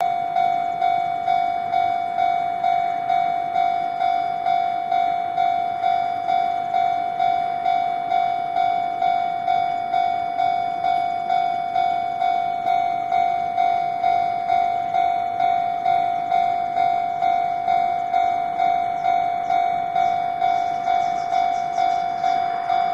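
Japanese level-crossing warning bell ringing continuously, an even electronic ding about twice a second, which signals that the crossing is closed for an approaching train. A faint high rattle joins near the end.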